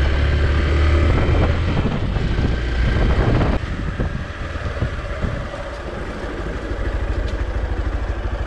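Hero XPulse 200's air-cooled 200 cc single-cylinder engine running under throttle while riding. About three and a half seconds in the throttle shuts and the engine settles to an even idle beat as the bike comes to a stop.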